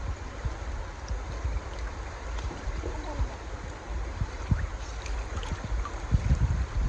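Steady rush of flowing river water, with a low rumble of wind buffeting the microphone.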